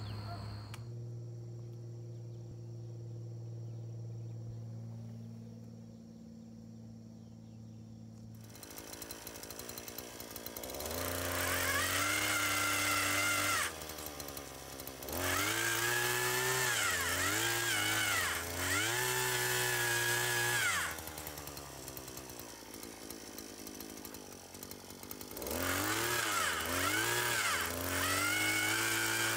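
Petrol-powered earth auger's small engine idling low, then revving hard in three long bursts of several seconds each as the auger bores into the soil, its pitch rising and sagging under load, dropping back to idle between bursts.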